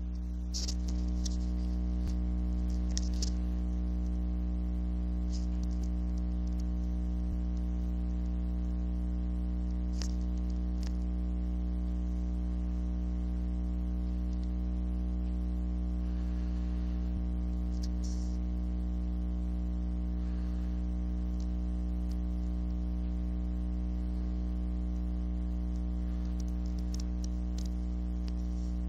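Steady electrical mains hum with a stack of even overtones that does not change, with a few faint, brief ticks on top.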